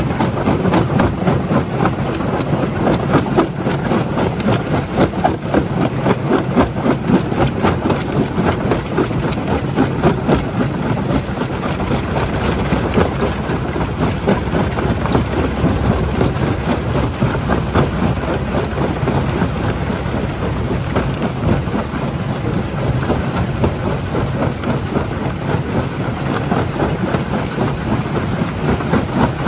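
Stone crusher running and crushing rock: a steady heavy machine rumble under constant dense cracking and clattering of stone.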